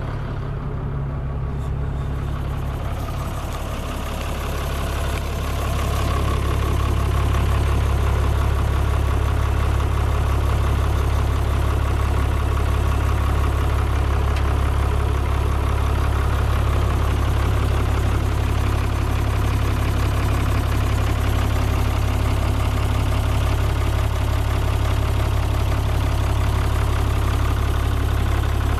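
DAF six-cylinder diesel engine of a Werklust WG 45 B wheel loader idling with a steady low hum. It grows louder about six seconds in, then holds steady.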